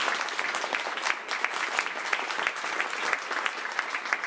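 Audience applauding: dense, steady clapping from a lecture-hall crowd at the end of a talk.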